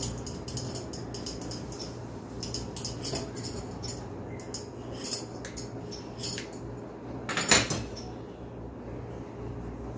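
A vegetable peeler scraping the skin off a mango in short repeated strokes, with one louder clatter about seven and a half seconds in, over a steady low hum.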